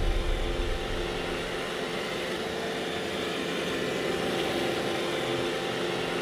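Robot vacuum cleaner running with a steady mechanical whirring hum. A deep low rumble dies away in the first half-second.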